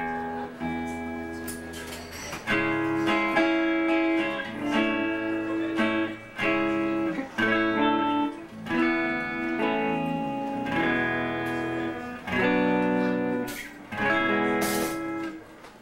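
Guitar playing a series of strummed chords, each struck and left to ring for about a second, with short dips between them.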